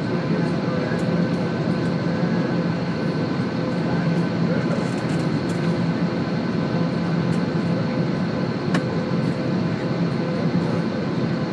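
Steady cabin noise inside a commercial airliner taxiing to the runway: the even rush and hum of engines and cabin air, with several steady tones and a few faint clicks.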